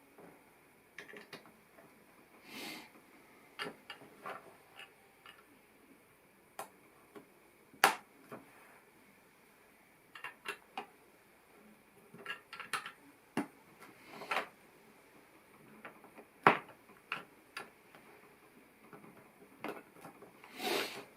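LEGO plastic pieces clicking and knocking as they are handled and pressed together: irregular sharp clicks, with a few short rustles.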